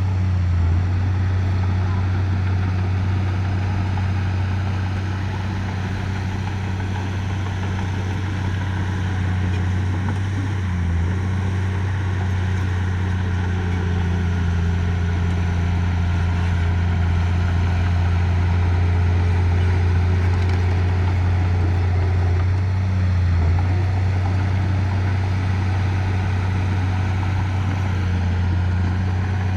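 Diesel engine of heavy earthmoving equipment running steadily with a deep, even hum that wavers briefly twice.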